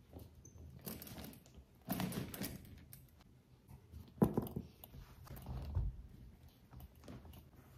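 Handling noise from a canvas-and-leather handbag being moved about: rustling and light knocks, with one sharper knock about four seconds in and a few dull thuds shortly after.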